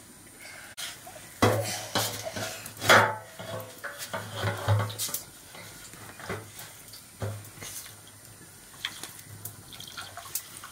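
A large aluminium can is tipped on its side and rice is shaken out of it into a small metal pot: a string of irregular metallic clanks and knocks, with the rice rattling into the pot between them.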